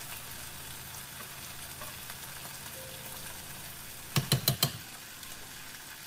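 Food sizzling steadily in a pan on the stove, with four quick knocks about four seconds in as a utensil is tapped against the cookware.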